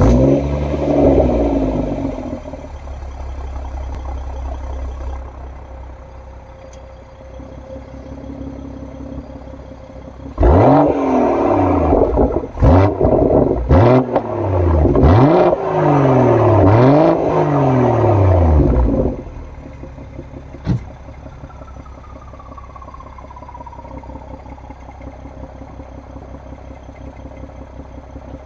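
BMW M140i's 3.0-litre turbocharged straight-six, with an M Performance rear silencer and Remus midpipe, starts up, flares and settles to idle. About ten seconds in it is blipped several times over roughly eight seconds, each rev rising and falling with sharp crackles and bangs on the overrun, then it drops back to idle with one more pop near twenty seconds. The pops and bangs are the artificial ones programmed in the exhaust's loud mode, which Traction mode forces on.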